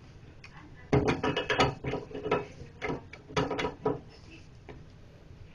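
Metal pliers clicking and scraping on a faucet's packing nut as they are set on it and turned to tighten it, in several short rattling bursts from about one to four seconds in.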